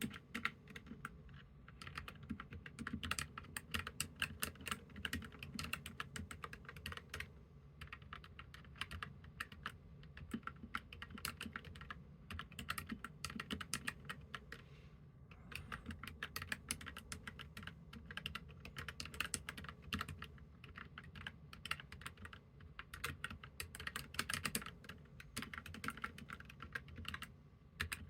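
Typing on a Keychron K3 Pro low-profile mechanical keyboard with red linear switches: a steady run of fast key clicks, with two brief pauses.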